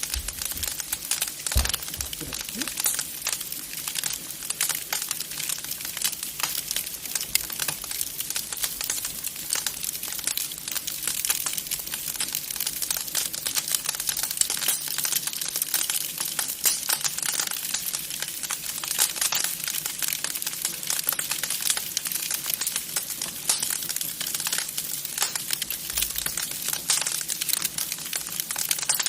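Wood fire crackling in a fireplace: a dense, continuous run of small pops and snaps.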